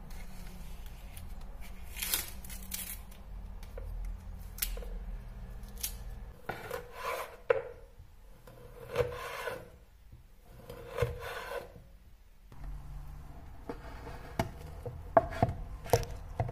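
A knife scraping and peeling the casing off a salami, then three long rasping strokes as a chef's knife saws through the salami. Near the end come several sharp knocks of the blade on a bamboo cutting board, over a low steady hum.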